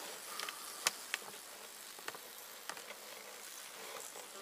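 Faint hum of a Buckfast honeybee colony in an opened hive, the bees clustered on their frames for winter, with a few light clicks.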